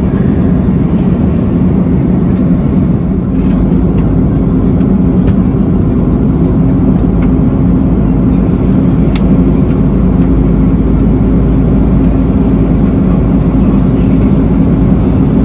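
Steady low drone inside an Airbus A330 airliner's passenger cabin in cruise: airflow and Rolls-Royce Trent 700 engine noise, with a steady hum and a few faint ticks.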